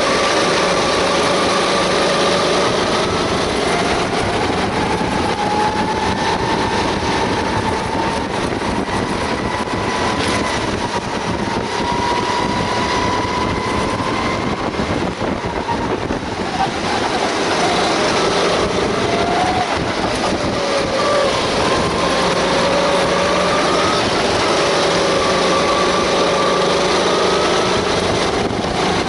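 Rental kart engine running at racing speed, its pitch rising and falling as the kart speeds up along the straight and slows for corners, with a steady rush of wind over the onboard microphone.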